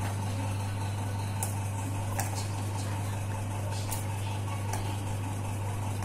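A steady low hum, with a few faint, light clicks as boiled chickpeas are dropped into puris on a plastic plate.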